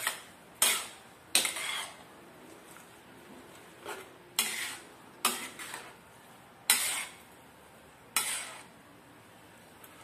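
Spatula scraping and knocking against a wok as stir-fried noodles are tossed. There are about eight separate strokes, each a sharp scrape that trails off quickly, with short pauses between them and a longer lull in the first half.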